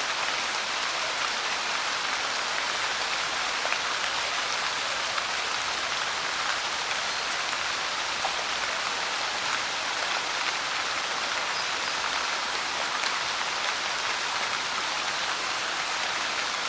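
Light rain falling steadily, an even hiss with many small drops ticking on a surface.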